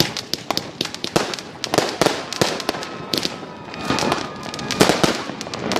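Fireworks going off: a dense, irregular run of sharp bangs and firecracker cracks, with a faint thin whistle about halfway through.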